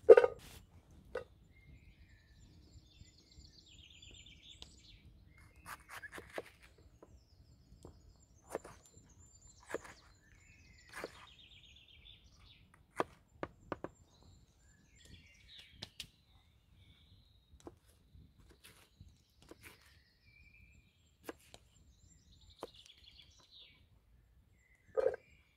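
A kitchen knife chopping a green bell pepper on a wooden log-round board: irregular sharp taps and thunks of the blade on wood, with a loud knock right at the start. Small birds chirp faintly in the background.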